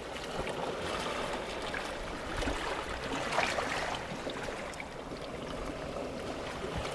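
Sea water washing and trickling over shoreline rocks, a steady rushing hiss with a few faint splashes.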